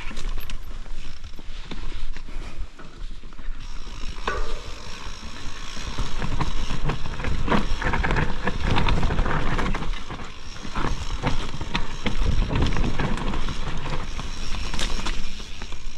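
Mountain bike ridden along a dirt trail: a continuous noisy rush of tyres and rushing air, broken by many short knocks and rattles from the bike over rough ground.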